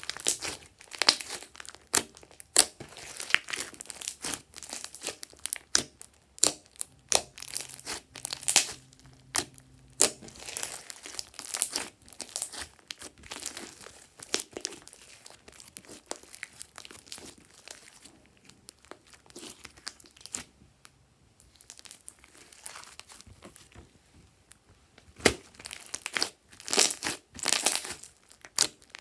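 Hands squeezing, stretching and folding glossy slime: irregular wet crackles and sharp popping clicks as air pockets in the slime burst. The crackling thins out and goes quieter in the middle, then comes thick and loud again near the end.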